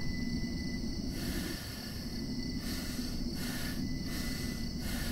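Low, steady rumbling soundtrack ambience with four short bursts of hissing noise over it, about a second apart, starting about a second in.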